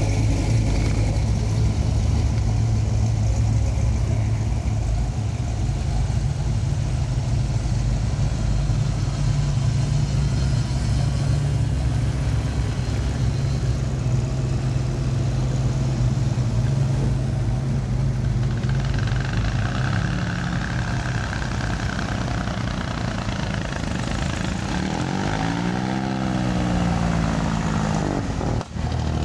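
Classic cars and a pickup truck driving past one after another at low speed, their engines running with a steady low note. Near the end one passes close, its engine note dipping and rising.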